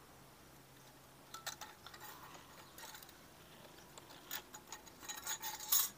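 Light metallic clicks and clinks as a metal cylinder head gasket is fitted over the studs of a motorcycle engine's cylinder and its cam chain is handled. The clicks are scattered, grow busier and are loudest near the end.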